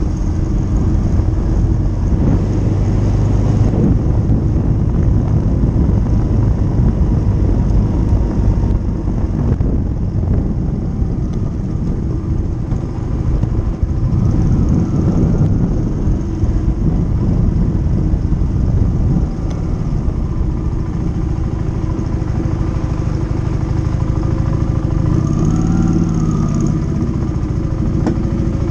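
Motorcycle being ridden: a loud, continuous low rumble of engine and road noise, with the engine note rising and falling near the end.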